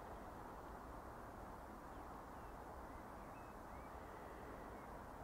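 Quiet outdoor ambience: a steady low background hush with a few faint, short bird chirps in the middle.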